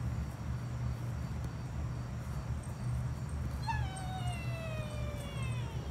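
A tabby kitten gives one long meow that falls slowly in pitch, starting a little past halfway through.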